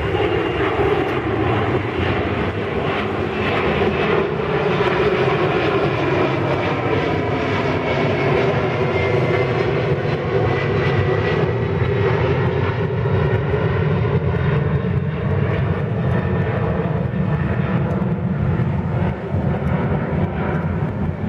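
Boeing 767-300 twin-jet climbing away overhead, its engines giving a continuous loud roar whose tones slowly fall in pitch as it passes and draws away.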